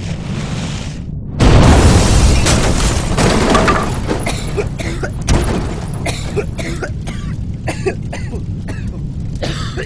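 Sound effects for an animated intro. A loud explosion goes off about a second and a half in, then its rumble fades under a long scatter of clattering, breaking debris.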